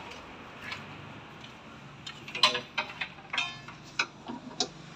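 Irregular sharp clicks and clinks, like metal tools and parts being handled during a repair, starting about two seconds in, with a faint low hum underneath.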